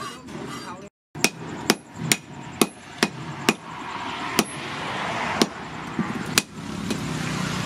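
Hand hammer striking red-hot axe steel held in tongs on a steel post anvil: about nine sharp blows, around two a second at first, then spacing out.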